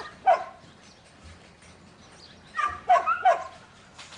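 Dog barking: two sharp barks at the start, then a quick run of three near the end.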